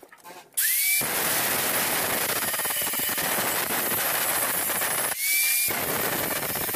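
Angle grinder starting up with a rising whine about half a second in, then grinding down a weld bead on thin sheet-steel tubing with a steady grinding noise. About five seconds in it is briefly lifted off the metal and spins free, then bites again.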